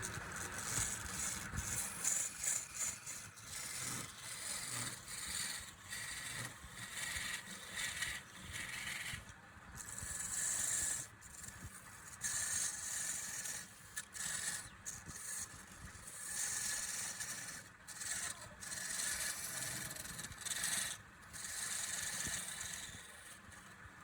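Repeated passes of a tool or abrasive scraping and rubbing against wood spinning on a lathe. Each pass lasts a second or two, with short breaks between.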